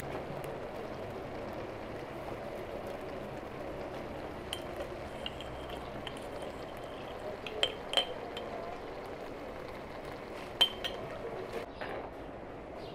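Metal spoon clinking several times against a glass jar and pan as thick tomato paste is spooned into the jar, each clink sharp and short with a brief ring.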